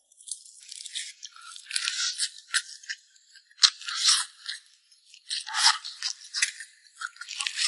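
Close-up crunching and chewing of crisp food, in irregular bites and crackles throughout.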